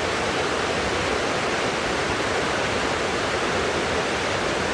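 Waterfall's steady rush of falling water, an even, unbroken noise.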